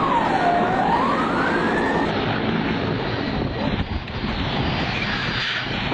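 Emergency vehicle siren wailing, sliding down and back up in pitch once before cutting off about two seconds in, over a steady rushing noise.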